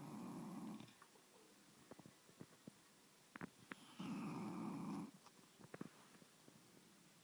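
English bulldog snoring in her sleep. One snore trails off just under a second in, and another comes about four seconds in and lasts about a second. Each snore opens with a faint high whistle that slides down, and there are light ticks in the quiet between.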